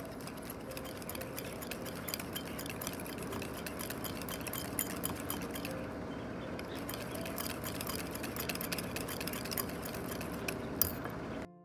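Wire whisk beating a thickening whipped coffee mixture in a ceramic bowl: rapid, steady clinking of the wires against the bowl, with one louder clink near the end before it cuts off suddenly.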